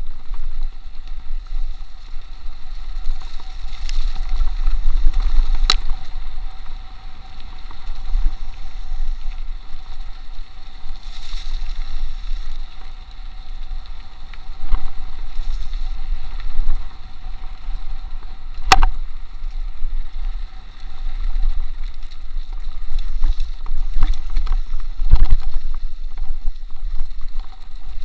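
Mountain bike rolling fast down a dirt trail, with wind buffeting the microphone as a steady low rumble. Several sharp knocks come from the bike going over bumps, the loudest about two-thirds of the way through.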